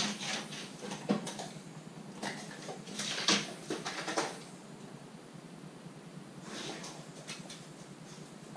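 A Rottweiler moving about a tiled kitchen, rearing up onto the worktop and dropping back down: scattered clicks and knocks of its claws and paws on the floor and counter, most of them in the first half, with a brief breathy rustle about two-thirds in.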